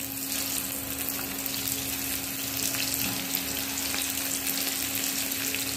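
Masala-coated okra pieces deep-frying in hot oil in a kadai: a steady sizzle with scattered small crackles, fresh pieces having just been dropped into the oil.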